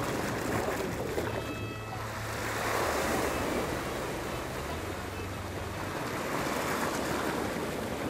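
Sea water washing and lapping in slow swells, with a low wind rumble underneath.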